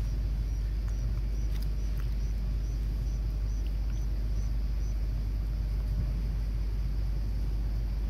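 A steady low rumble, with a faint high chirp repeating about twice a second through the first four seconds.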